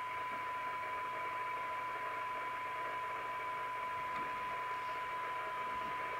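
York JCB861 CB radio's speaker playing a steady test tone from a signal generator over a constant hiss of static. The generator's attenuator is backed off to a weak signal so that the receiver's IF transformers can be aligned.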